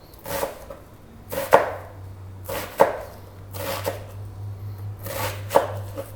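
Kitchen knife chopping vegetables on a cutting board, with separate strokes about once a second over a low steady hum.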